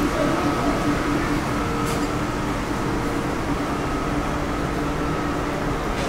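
Steady machine hum and low rumble with a few faint steady tones, without change throughout.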